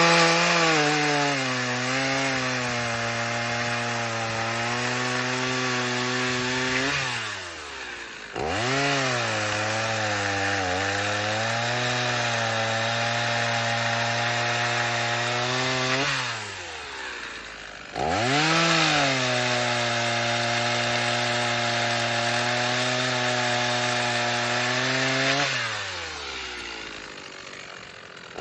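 1984 Husqvarna 50 Rancher two-stroke chainsaw cutting dead elm: three long cuts of about seven seconds each, the engine held at a steady loaded pitch. Between cuts the throttle is let off and the engine falls back toward idle, then revs up again.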